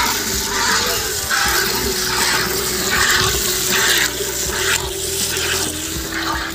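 Milk squirting from a cow's teats into a metal pail during hand milking. The hissing squirts come in a steady rhythm, about one every two-thirds of a second, as the milker's hands take turns.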